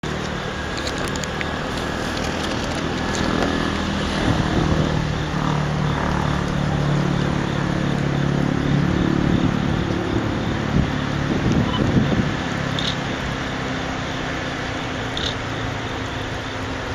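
Freight train running past: a steady rumble with a low hum that swells through the middle, and a few short clicks.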